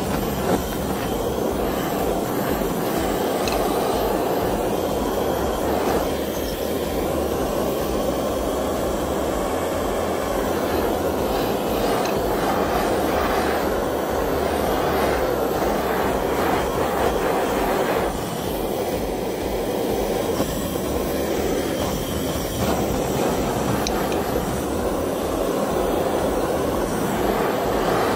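Handheld butane gas torch burning steadily, a constant rushing noise of the flame as it is played over a wooden hammer handle to scorch it.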